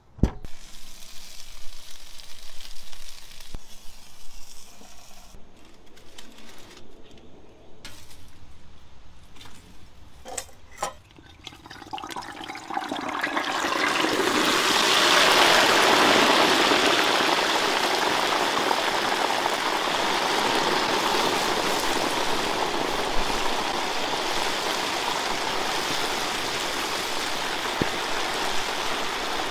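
Hot oil in a turkey fryer pot starts to sizzle and bubble loudly about halfway through as a whole turkey is lowered into it, then keeps up a steady sizzle. Before that come a few scattered clicks and knocks.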